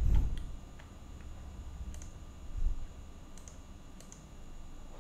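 Computer mouse clicking several times, sparse sharp clicks with one close pair about three and a half seconds in. A low thump at the very start is the loudest sound, and a smaller one comes about two and a half seconds in.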